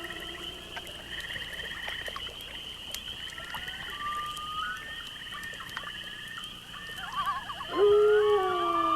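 A pack of wolves howling in chorus. Several long, overlapping howls slide down in pitch and fade in the first second, and a new round of howls with wavering yips starts again about seven to eight seconds in.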